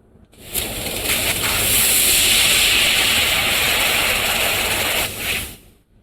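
Handheld fiber laser cutting steel: a steady hiss of assist gas jetting through the cutting nozzle. It starts about half a second in and stops shortly before the end.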